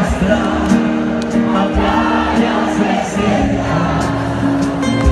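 Live pop-rock music played by a band in an arena concert, with long held notes over a steady low beat.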